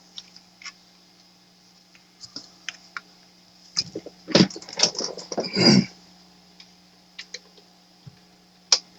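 Scattered light clicks and knocks of hard objects being handled, with a cluster of louder knocks and a scrape about four to six seconds in, over a steady low hum.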